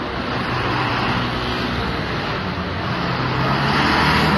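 Street traffic noise, with a motor vehicle's engine running and growing louder near the end.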